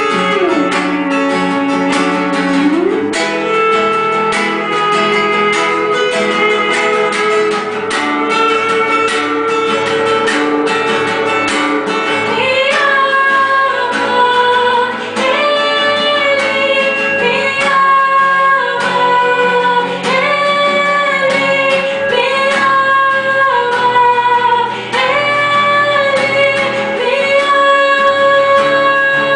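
A woman singing a slow worship song over a strummed acoustic guitar. The guitar strumming is densest in the first half; from about halfway through, long held sung notes step up and down over it.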